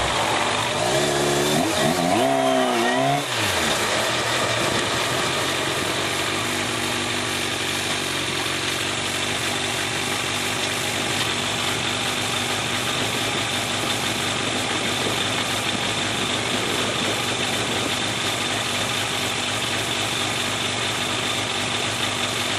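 Yamaha FZR sportbike's inline-four engine, heard from on the bike, its pitch swinging up and down in quick revs for the first few seconds, then running steadily at low revs under a constant rush of wind and road noise.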